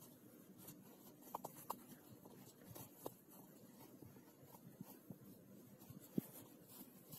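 Faint rustling of cloth with a few small clicks as a metal bodkin is worked by hand through a trouser waistband casing, bunching the fabric along it.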